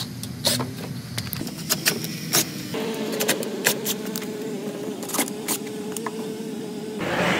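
DeWalt cordless drill running at a steady speed for about four seconds as it bores a hole through a rubber golf cart floor mat for a push pin. Scattered sharp clicks and taps run throughout.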